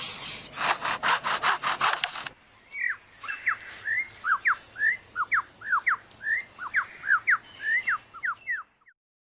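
Superb lyrebird mimicking a chainsaw: rapid rasping pulses for about two seconds. It then breaks into a quick run of short whistled notes sliding up and down, which stops shortly before the end.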